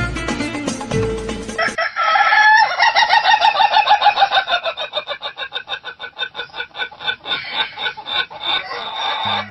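Music plays for the first two seconds, then a rooster crows one very long crow of about seven seconds. The note falls slowly in pitch and breaks into a rapid quaver as it goes on.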